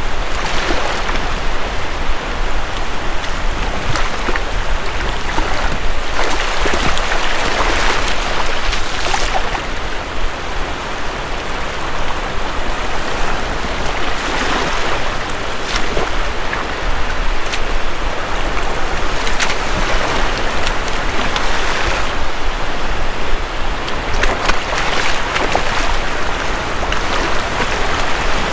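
Shallow surf washing up and back on a sandy beach, swelling and falling every few seconds.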